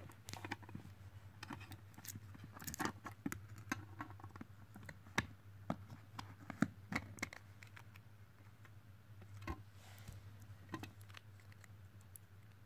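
Irregular small clicks and light knocks of an opened power bank being handled: its circuit board, pouch lithium battery and black plastic case shifted and pressed together by hand. The clicks come thickest in the first half and thin out later, over a steady low hum.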